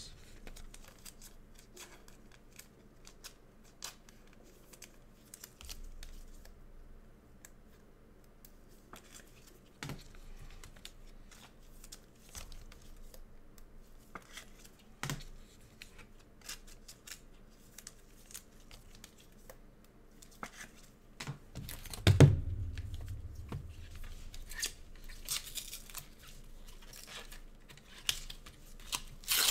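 Trading card packs being opened: scissor snips, wrappers tearing and crinkling, and scattered clicks and taps, with one louder knock about three-quarters of the way through.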